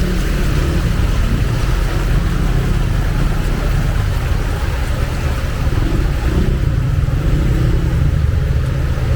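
Heavy rain falling steadily, with a motor vehicle's engine running close by under it.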